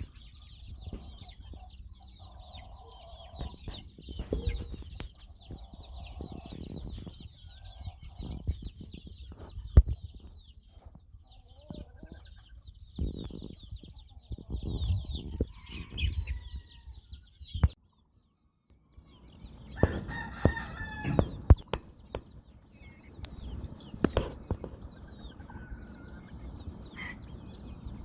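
A flock of young roosters clucking, with short crows among them, over constant high-pitched chirping from many birds. There are a few sharp knocks, and the sound drops out for about a second two-thirds of the way through.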